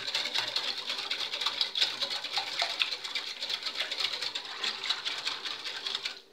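Wire whisk beating gelatin mixed with water in a glass bowl: rapid, steady clicking of the wires against the glass.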